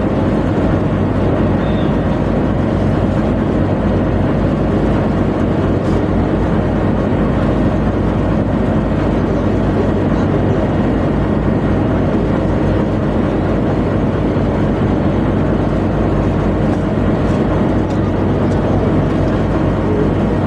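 Tugboat's engine machinery running with a loud, steady drone.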